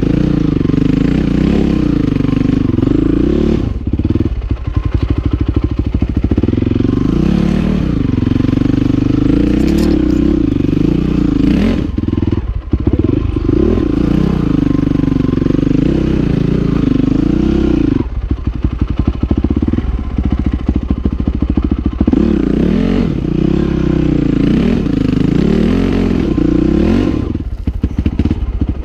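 Honda CRF450R single-cylinder four-stroke dirt bike engine, its revs rising and falling over and over as it is ridden slowly over rocks. Knocks and clatter come from the bike working over the stones.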